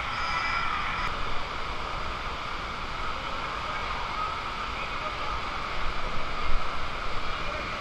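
Steady rush of flowing water in a water-slide channel as a rider slides down it, with a few louder bumps and splashes about six to seven seconds in.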